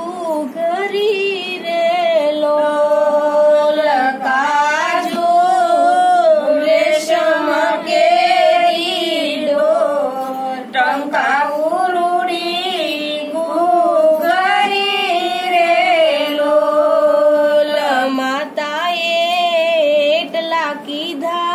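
A woman singing a Gujarati devotional bhajan unaccompanied, in long held notes with a wavering pitch.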